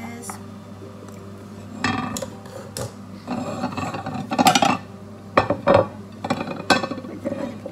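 A spatula scraping around a saucepan, and ceramic dinner plates knocking and sliding on a wooden worktop as they are separated. The sharpest clinks come in the second half.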